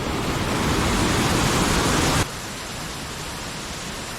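Waterfall rushing at high flow after heavy rain, a steady roar of water. About two seconds in it drops suddenly to a quieter, even rush.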